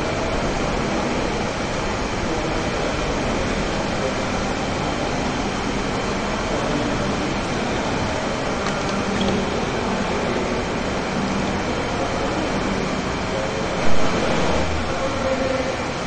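Steady background noise with faint voices, and a brief loud bump about fourteen seconds in.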